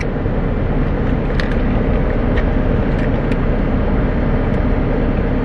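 Steady car cabin noise: a low rumble with a faint hum held through, and a few faint clicks.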